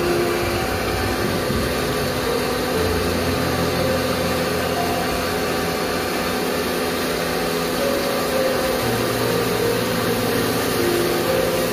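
Motor-driven pump running steadily, its hum stepping to a new pitch a few times, while its hose jets water into a blocked sink drain and the water splashes.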